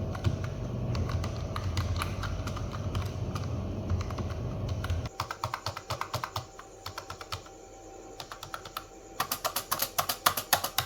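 Fast typing on a basic membrane keyboard, a dense run of soft, muffled keystrokes. About five seconds in the sound changes abruptly to sparser, crisper keystrokes, which grow louder and brighter near the end.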